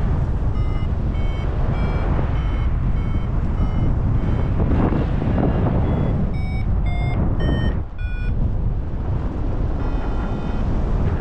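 Paragliding variometer beeping in short pitched beeps about two a second, quickening and shifting in pitch after about six seconds, then stopping, with a few faint beeps near the end; the beeping signals that the glider is climbing in lift. Loud wind rush on the microphone from the flight runs under it.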